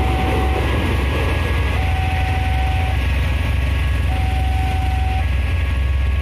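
Railway level-crossing warning alarm sounding while the crossing is closed. It alternates a lower steady tone with a higher two-note tone, each lasting about a second, over the steady low hum of idling motorcycle and car engines.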